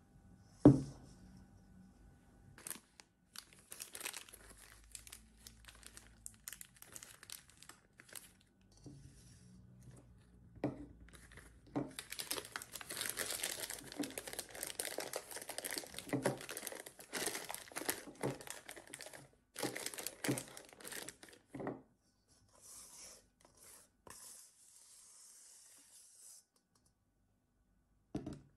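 Disposable plastic piping bag crinkling and rustling in irregular bursts as it is handled and opened out, loudest in the middle. A single sharp knock about a second in.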